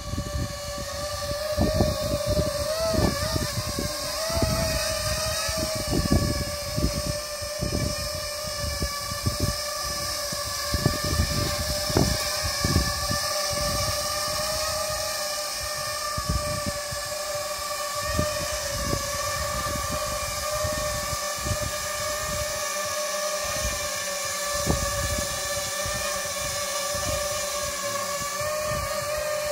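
Quadcopter's Emax 2204 brushless motors and triblade propellers running at steady throttle, a continuous whine whose pitch wavers a little in the first few seconds and then holds steady. Wind buffets the microphone underneath.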